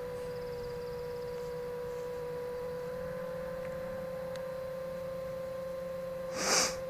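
A steady hum at one unchanging pitch, with a short rustle-like burst of noise near the end.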